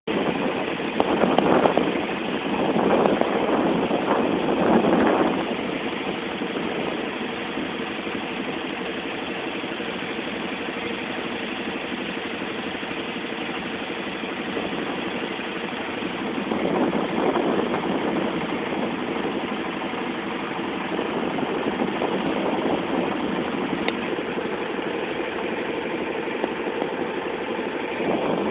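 Boat engine running steadily on board a moving boat, with louder rushing noise swelling a few times near the start and again about two-thirds of the way through.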